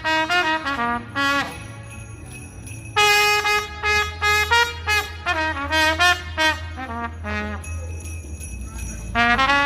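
Street trumpet playing a melody note by note, with a steady low drone underneath and a short lull in the playing a couple of seconds in.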